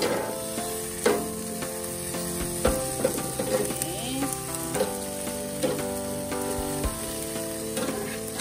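Mackerel and asparagus sizzling on a hot gas grill, with a few sharp clicks of metal tongs against the grill grate as the food is turned.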